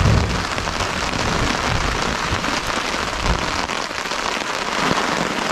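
Heavy rain pouring steadily onto a tarp and the forest floor, with a few low thuds near the start and about three seconds in.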